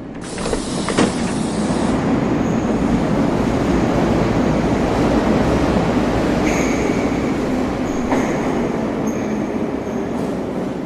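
Subway train running on the rails: a steady rumble that swells up over the first second, with two sharp clanks and thin, high wheel squeals from about halfway through.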